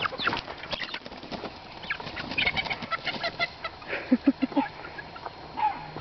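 Young chickens being chased by herding corgi puppies: flapping and scuffling, with short high peeps and three short low clucks about four seconds in.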